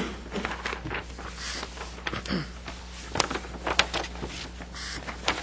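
Soft rustling and a few sharp clicks over a steady low hum in a small room: handling noise from people at a meeting table.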